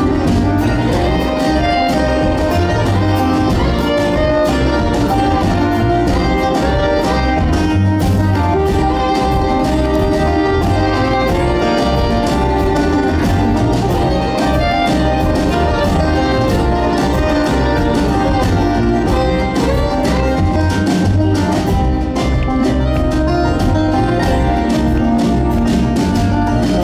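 Live acoustic string band playing a bluegrass-style song on fiddle, banjo, acoustic guitar, mandolin and upright bass.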